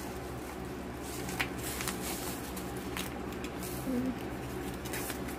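Scattered light clicks and rustles of a ceramic flat iron being handled and taken out of its packaging, over a steady low hum.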